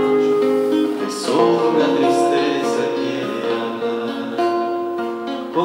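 Live acoustic guitar music, strummed and picked, with a strong chord stroke about a second in.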